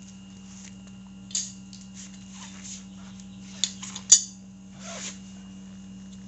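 A few sharp metallic clicks and clinks from hand tools and brake parts being handled during motorcycle brake work, the loudest about four seconds in, with a brief rustle after it. A steady low hum runs underneath.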